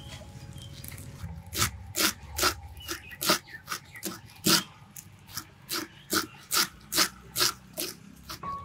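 Kitchen knife chopping mukunuwenna greens on a wooden board: a steady run of sharp chops, about two to three a second, starting a little over a second in.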